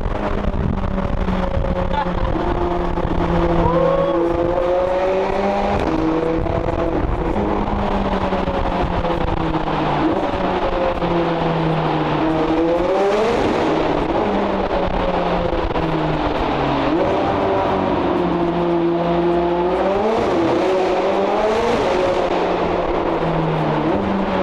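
McLaren 765LT Spider's twin-turbo V8 with IPE downpipes, driven hard: the engine note sinks and climbs repeatedly as the car accelerates and eases off. There are sharp climbs in revs about halfway through and again near the end.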